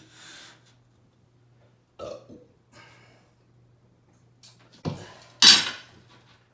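Laminate flooring plank being tilted down and pressed into its joint by hand: a short creak about two seconds in, a sharp knock near the end, then a brief louder rasp as the plank seats, over a faint steady hum.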